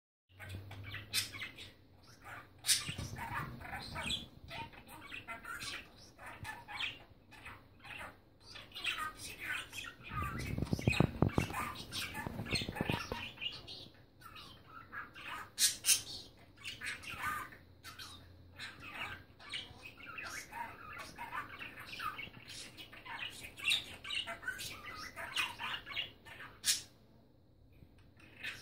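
Pet budgerigar chattering and warbling in a steady run of quick chirps and squawks. A louder, lower-pitched sound comes in from about ten to thirteen seconds in.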